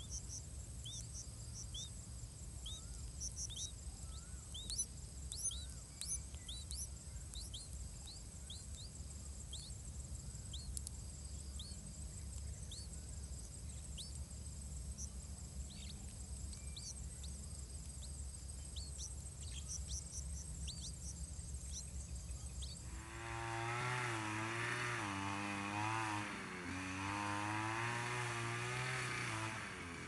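Many short, high chirps over a low steady hum, then about 23 seconds in a motorised grass cutter starts running loud close by, its engine pitch wavering up and down.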